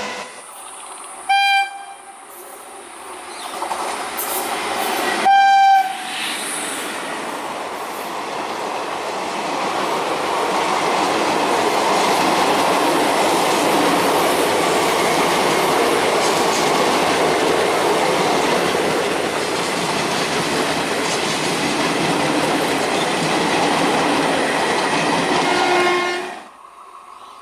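Electric passenger train's horn sounding two short blasts about four seconds apart, the second louder, followed by the train passing with a steady rumble and clatter of wheels on rails for about twenty seconds, which cuts off suddenly near the end.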